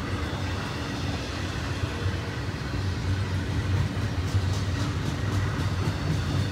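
Double-stack intermodal well cars of a Union Pacific freight train rolling past: a steady, even noise of wheels on rail, with a few light clicks a little over four seconds in.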